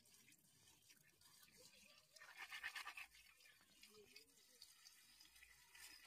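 Hands washing wet chive roots: a short burst of quick wet rubbing and splashing about two seconds in, otherwise faint.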